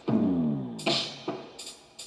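A drum beat: sharp percussive hits about every half second, opening with a tone that slides down in pitch over most of a second.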